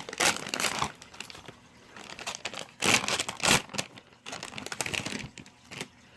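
Plastic squishy packaging crinkling and rustling in irregular bursts as it is handled and opened, loudest about three seconds in.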